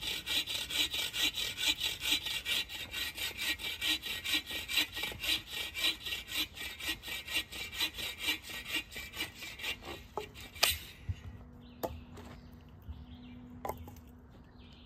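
Agawa Boreal 24-inch folding bow saw cutting through a dry branch in steady rasping strokes, about three a second. The sawing stops about ten and a half seconds in with a sharp crack, followed by a few scattered knocks.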